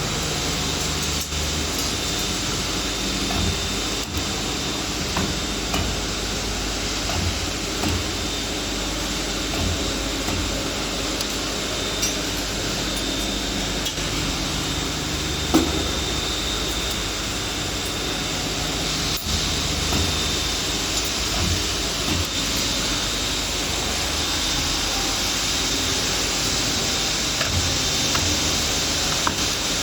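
2D CNC wire bending and punching machine running: a steady hiss and hum, with motor drones starting and stopping every few seconds and scattered sharp clicks of metal.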